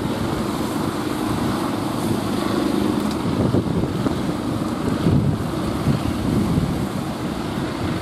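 Wind buffeting the microphone over the steady rumble of breaking surf.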